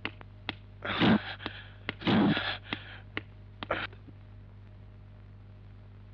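Car door and footsteps: a few light clicks, two short, loud, noisy thumps about one and two seconds in, and more clicks. Then only a steady low hum.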